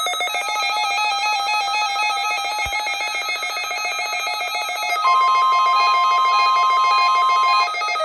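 NOAA Weather Radio weekly test signal played through weather radio receivers: the rapid, warbling digital chatter of the SAME/EAS header data, then about five seconds in the steady 1050 Hz warning alarm tone, which holds for about two and a half seconds and cuts off sharply.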